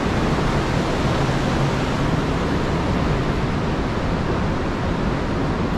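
Steady rushing of the gorge's stream, an even, unbroken wash of water noise, heard from a rock tunnel beside it.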